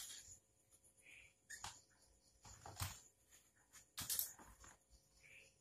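Faint handling noise from work on an opened LED TV's circuit boards and cables: a few short clicks, knocks and rustles, the loudest about three and four seconds in.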